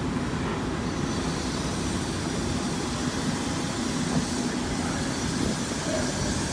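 Fire truck's diesel engine running steadily, a constant low drone.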